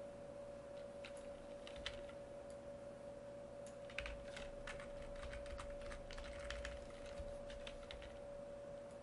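Computer keyboard keys clicking: a few scattered taps, then a quick run of keystrokes in the second half. A steady faint hum runs underneath.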